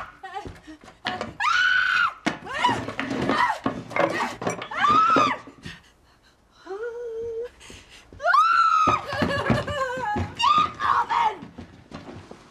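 High-pitched shrieking and yelling voices, several screams and shouts in quick succession with short pauses between them.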